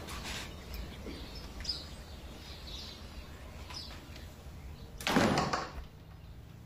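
A door shutting with a loud thud about five seconds in, over a steady low rumble and faint scattered chirps.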